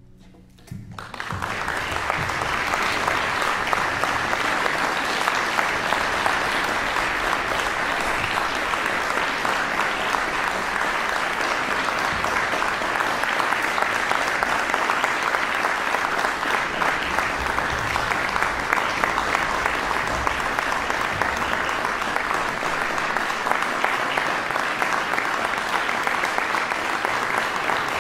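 Concert audience applauding, breaking in about a second in and holding steady.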